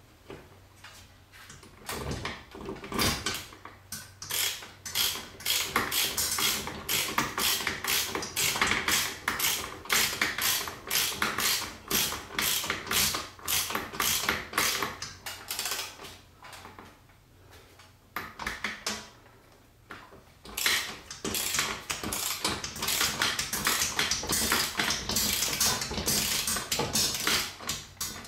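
Ratchet socket wrench clicking in quick strokes as it tightens a mounting bolt through a steel ceiling bracket. The clicking starts about two seconds in, stops for a few seconds past the middle, then resumes.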